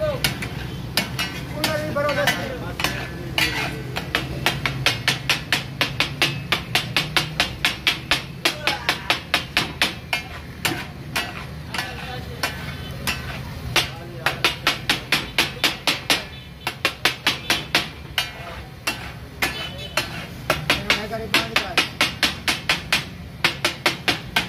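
Two steel spatulas clattering rhythmically on a large flat iron griddle (tawa) as the cook chops and turns brain masala: the 'taka tak' clatter, about three to four strikes a second with brief lulls. A steady low hum runs underneath.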